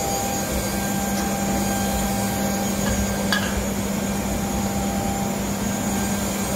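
Waste-oil burner in a converted barrel stove running hard: a steady roar of the small blower pushing air into the burners and of the flames, with a steady hum throughout and a faint click about three seconds in.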